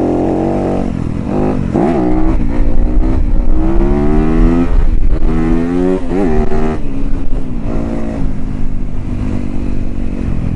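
Yamaha YZ250FX dirt bike's single-cylinder four-stroke engine under way, its pitch repeatedly sweeping up and dropping back with the throttle, then running steadier in the last few seconds.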